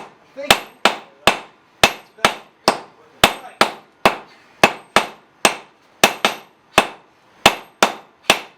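Hammer and sledgehammers striking hot steel on an anvil in a steady rhythm, about two blows a second, many with a high ring from the anvil, as the head of a tack is forged.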